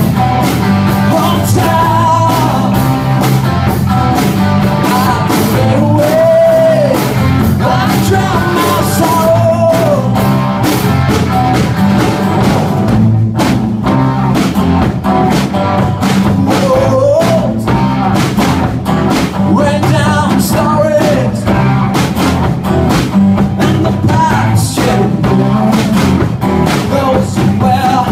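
Live rock band playing a song: drum kit keeping a steady beat under electric guitars and a strummed acoustic guitar, with a man singing.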